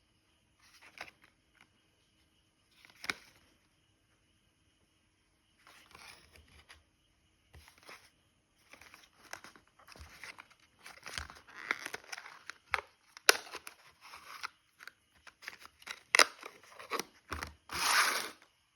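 Rustling and crinkling handling noises with a few sharp clicks, sparse at first and growing busier and louder toward the end.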